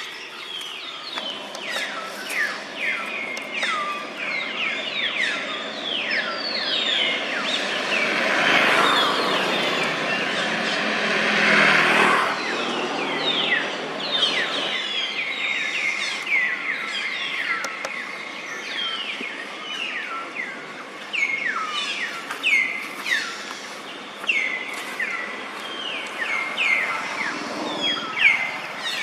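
Birds chirping: many short, quick downward-sliding calls overlapping one another. In the middle a louder rushing noise, like a passing vehicle, builds up and then cuts off suddenly.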